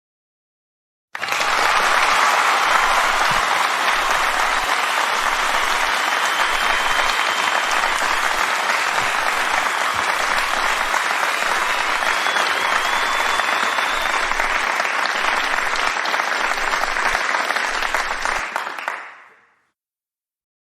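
A crowd applauding, most likely a stock sound effect: it starts abruptly about a second in, holds steady, and fades out near the end, with a faint whistle or two in the middle.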